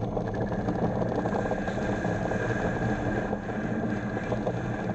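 Small bench lathe running steadily under its electric motor while the cutting tool turns down a spinning acrylic blank.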